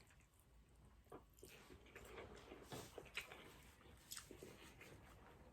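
Faint chewing of beef pho noodles and meat, with soft scattered mouth smacks and clicks starting about a second in.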